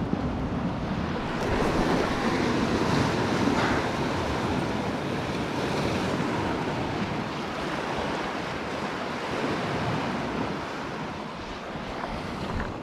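Sea waves washing against the rocks below, with wind buffeting the microphone.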